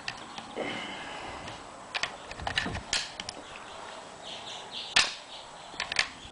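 Metallic clicks and clacks of an M1 Garand rifle being loaded and handled, an en-bloc clip of cartridges pushed into the receiver. A single sharp crack comes about five seconds in, and a loud rifle shot begins right at the end.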